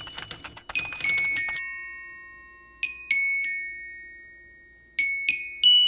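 Rapid typewriter key clacks mixed with bell-like ringing notes for about the first second and a half. Then come two groups of three chiming, glockenspiel-like notes, about two seconds apart, each note ringing on and fading.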